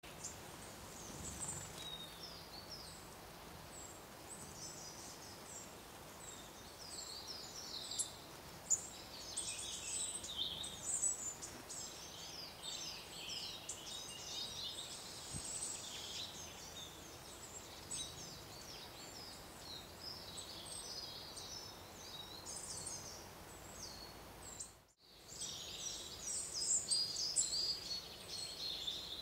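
Small songbirds singing and calling, many overlapping high chirps and trills, with the sound dropping out for a moment about 25 seconds in.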